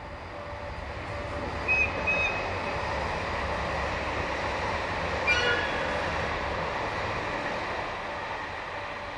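Electric commuter train rolling past on the next track, its running noise swelling and then fading over a low steady rumble. Short shrill tones cut through twice near two seconds in and once more, loudest, about five seconds in.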